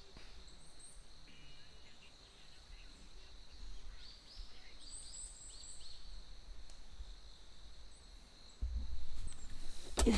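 Forest ambience: small birds giving short, high chirps over a steady, high-pitched insect drone, with a low rumble of wind on the microphone that grows louder near the end and a sharp knock just before it ends.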